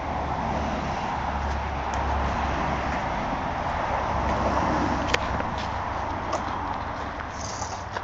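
A car passing on the road, its tyre noise swelling to a peak about halfway through and then fading, with a sharp click about five seconds in.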